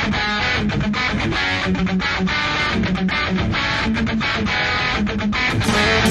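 Instrumental intro of a rock song: strummed guitar chords in a quick, steady rhythm over repeating bass notes.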